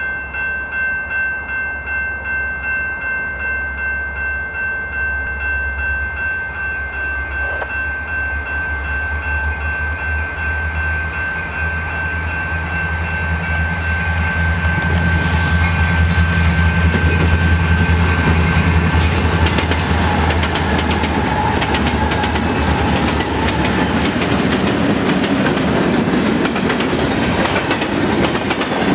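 Level-crossing bell ringing steadily at about two strokes a second as a CN diesel-hauled freight train approaches with a rising engine rumble. Once the locomotives are past, the freight's tank cars clatter over the rail joints close by.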